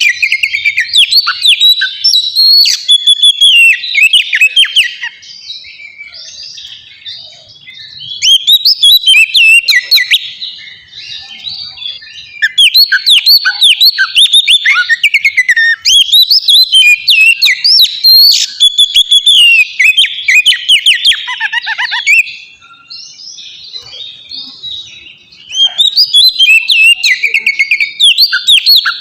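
Oriental magpie-robin (kacer) singing, with rapid runs of sweeping whistled notes. It sings in four loud bouts with softer, quieter song between them.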